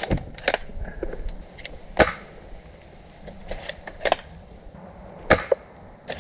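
Airsoft guns firing single shots: about six sharp cracks at irregular intervals, the loudest near the end.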